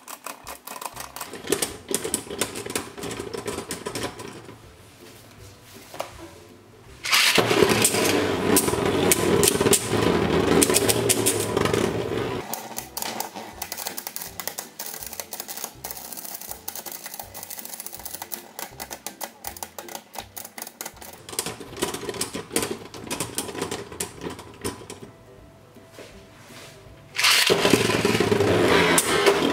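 Two Beyblade Burst spinning tops, Glide Satan and World Spriggan, spinning and rubbing against each other in a plastic stadium: a fast, continuous rattling clatter of contact. It gets loud for several seconds about seven seconds in and again near the end.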